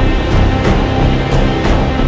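Background music with a steady beat of deep drum hits.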